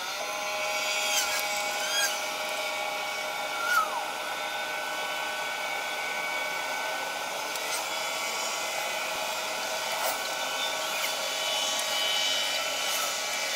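Steady whirring hum of a small electric motor, with a few short clicks.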